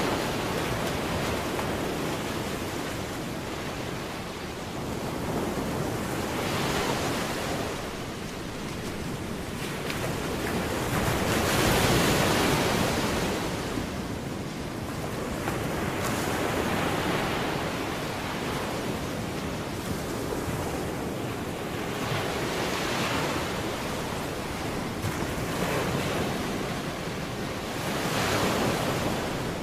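Ocean surf: waves breaking and washing in slow swells about every five or six seconds.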